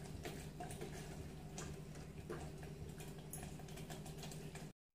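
Thick masala paste being stirred with a steel ladle in an aluminium pot: a few scattered soft clicks and taps over a low steady hum, cutting off suddenly near the end.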